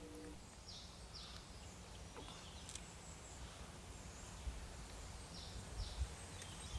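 Quiet outdoor ambience with a small bird calling twice, each time a pair of short high chirps, over a low rumble of wind on the microphone with a few soft bumps.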